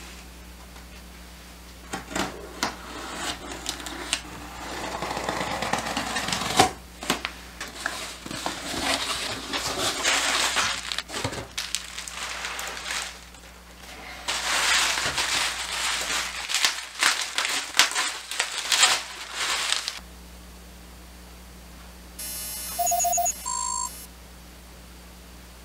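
Hands unpacking a cardboard shipping box and unwrapping bubble wrap from a product box: rustling and crinkling plastic with many small clicks and cardboard knocks. Near the end comes a short electronic beeping of a couple of seconds over a low steady hum.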